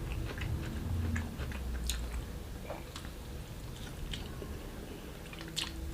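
A person chewing a mouthful of tempeh close to the microphone, with soft bites and small irregular wet mouth clicks.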